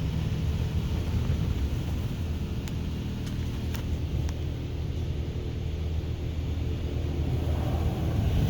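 Steady low rumble and hum of a Laser Wash 4000 touchless automatic car wash heard from inside the car, with a few faint clicks about three to four seconds in. A louder rushing noise builds up near the end.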